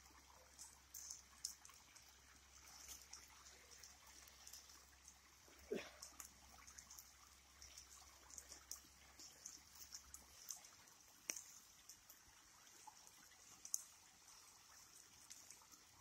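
Faint crackling from a wood-ember fire grilling skewers of meat, scattered small pops over a steady high hiss.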